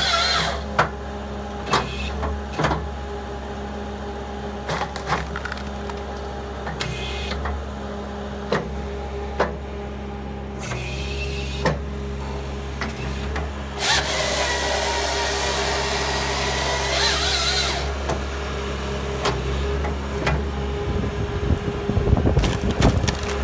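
Bobcat skid steer engine running steadily, driving a Halverson firewood processor through dry red gum. Split wood gives sharp knocks every second or two as it cracks and drops, and the processor's saw bar cuts through the log for about four seconds past the middle. Low rumbling comes near the end.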